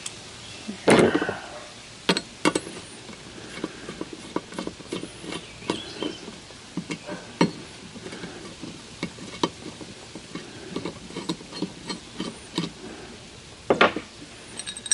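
Irregular light clicks and clinks of metal hand tools and small loose parts being handled on a rusty cast-iron jointer base as it is taken apart, with a louder knock about a second in and another near the end.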